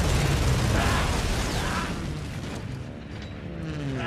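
War-film battle sound effects: a loud blast, then dense crashing and rumbling that slowly fades over a few seconds.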